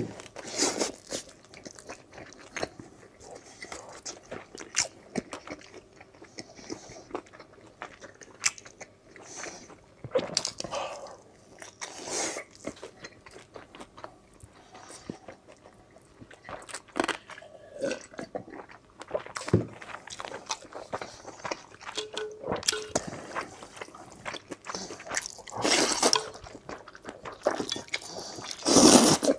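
Close-miked eating sounds: wet chewing, biting and sharp mouth clicks, with louder slurping of noodles near the end.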